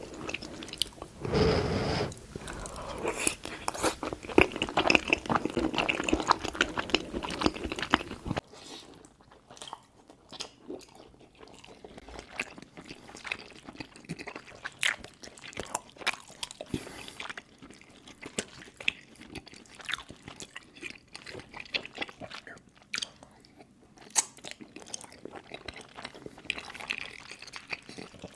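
Close-miked chewing of macaroni and cheese, with wet smacking and clicking mouth sounds. Dense and louder for the first eight seconds or so, then quieter, with separate smacks and clicks.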